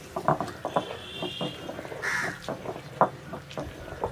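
Stone pestle knocking and grinding on a flat stone slab in a string of short, sharp taps, the loudest about three seconds in. Crows caw in the background, one call about two seconds in.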